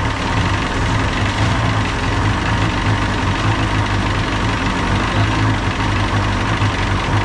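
1976 Johnson 135 hp two-stroke outboard motor running steadily just after being restarted, during a Seafoam treatment following a ten-minute hot soak.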